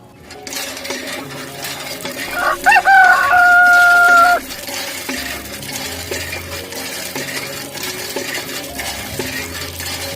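A rooster crowing once: one long call of about two seconds that rises at the start and then holds, over a background of clucking chickens.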